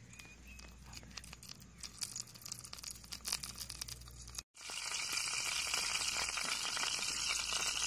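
Dosa batter sizzling and crackling on a small hot pan. After a brief cut, a louder, steady sizzle.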